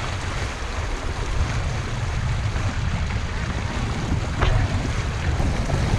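Wind buffeting the microphone over the steady wash of water along the hull and wake of a small sailboat under sail. A single short tick about four seconds in.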